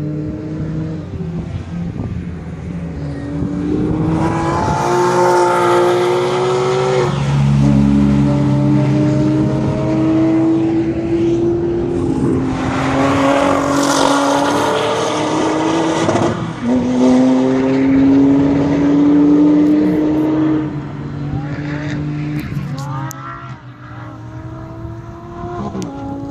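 A Porsche 911 accelerating hard on full throttle. Its engine note climbs through the revs and drops at each of three upshifts, about every four to five seconds. It is loudest as it passes close by in the middle, then fades as it pulls away.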